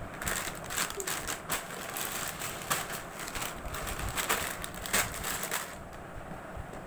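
Plastic snack packets crinkling and crackling as they are handled and shifted inside a cardboard box, with many sharp crackles. It dies down over the last second or so.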